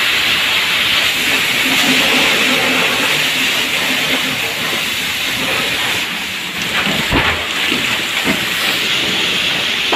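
Water jet from a fire hose nozzle spraying into a burning house, a loud steady hiss. A few knocks around seven seconds in.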